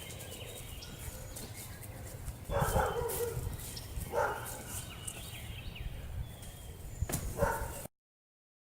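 A dog barking three times, short barks about 2.5, 4 and 7.5 seconds in, over a steady low rumble of wind on the microphone. The sound cuts off abruptly near the end.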